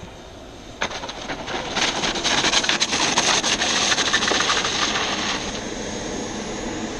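RC model jet landing on the asphalt runway with its right landing gear failed: a rushing jet noise with rapid crackle starts abruptly about a second in, is loudest in the middle and cuts off suddenly.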